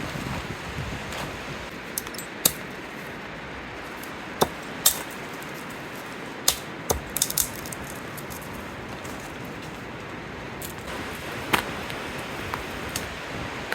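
Steady wind hiss with a dozen or so sharp clicks and snaps scattered through it, several in quick clusters.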